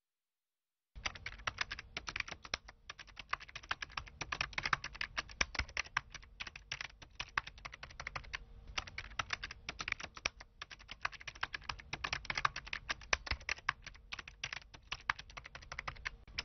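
Fast typing: a quick, uneven patter of key clicks with brief pauses, starting abruptly about a second in and cutting off sharply at the end.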